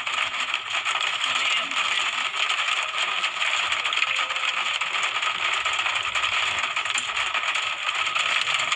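Rain falling on a car's roof and windows, heard from inside the cabin as a steady hiss of many small taps.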